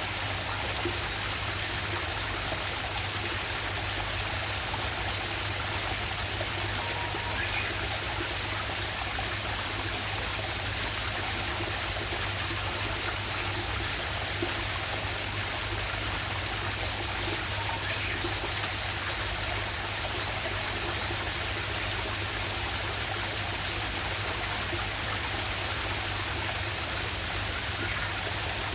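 Water of a small jungle waterfall and stream running steadily, an even rushing with no change.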